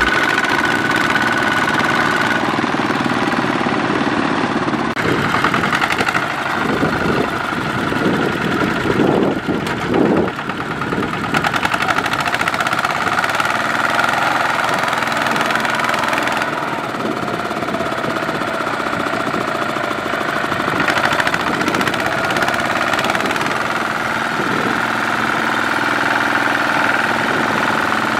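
Single-cylinder diesel engine of a two-wheel walking tractor running steadily as it pulls a loaded rice trailer through deep mud, with a steady high whine over the engine note.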